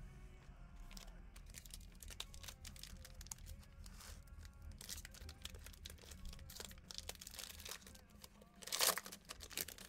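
Crinkling and crackling of a foil trading-card pack being handled and pulled open, with a louder rip about nine seconds in.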